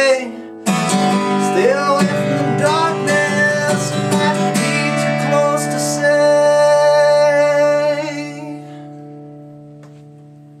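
Acoustic guitar strummed under a harmonica played from a neck rack, an instrumental outro with bending notes. The last chord is held and rings out, fading away from about eight seconds in.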